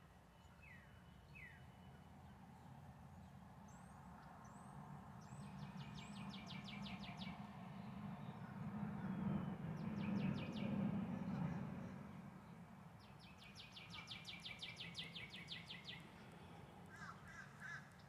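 Songbirds calling: a few quick chirps early on, then two rapid trills, one before the middle and one after it. Beneath them, a low rumble of passing road traffic swells to its loudest in the middle and fades.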